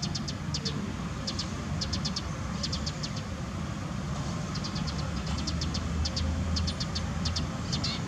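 Insects chirping in quick groups of short, high pulses, several to a group, over a steady low rumble.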